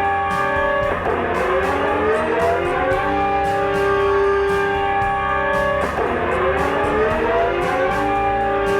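Loud droning alert-style tone made of several steady pitches at once. Twice, about five seconds apart, it drops sharply in pitch and then glides back up over about two seconds.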